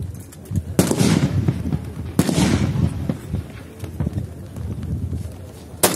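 Three big-bore rifle shots, each a sharp crack followed by a rolling echo that dies away over about a second. The second comes about a second and a half after the first, the third some three and a half seconds later, near the end.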